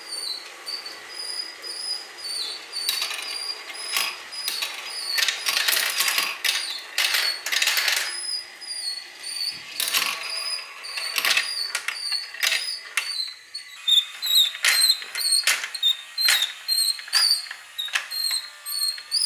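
Marbles rolling and clacking along a plastic marble-run track, with a motorized chain elevator ticking and squeaking several times a second as it lifts them. A dense stretch of clattering comes about three to eight seconds in.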